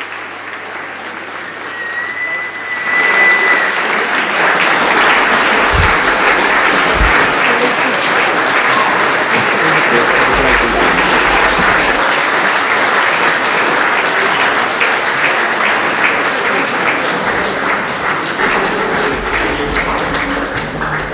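Sustained applause from the parliamentary chamber and gallery, swelling sharply about three seconds in and holding steady. A short, high, steady whistle-like tone sounds just before the swell.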